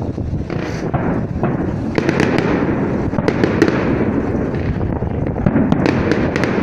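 Aerial fireworks display: a continuous rumble of shell bursts, with sharp crackling pops that come in clusters from about two seconds in.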